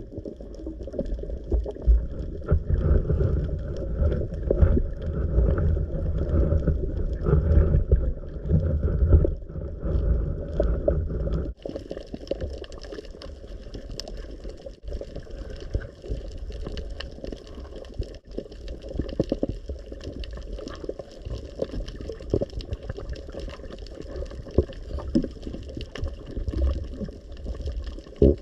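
Water sloshing and gurgling, heavy and rumbling for about the first eleven seconds, then abruptly lighter and steadier with a faint hiss.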